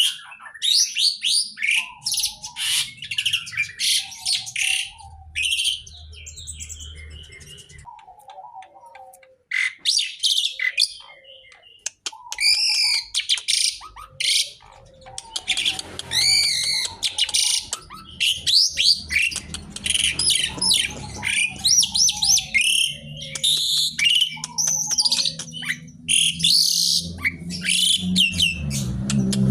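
A songbird singing a long, varied song of rapid chirps, trills and sweeping whistled notes, broken by a couple of short pauses, with a faint low hum beneath.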